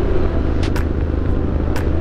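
Triumph Street Scrambler 900's parallel-twin engine running through a Zard aftermarket exhaust at a steady cruise, with wind rush on the microphone. A light tick recurs about once a second.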